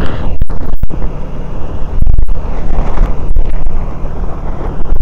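Heavy wind buffeting the microphone of a motorcycle riding at speed on a wet road, a loud steady rumble over the bike's running engine and tyres. The sound drops out for a split second a few times.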